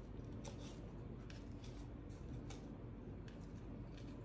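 Kitchen knife slicing fresh basil leaves on a wooden cutting board: light, irregular taps of the blade against the board.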